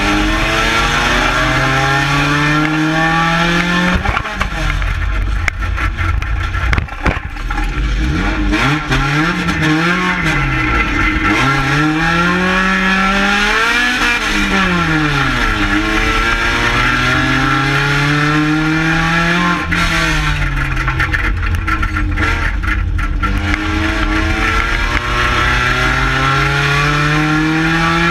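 Engine of a 2-litre stock car heard from inside its stripped cockpit, revving up and falling back again and again as the driver accelerates and lifts around the track. A few sharp knocks cut in, mostly between about four and eight seconds in.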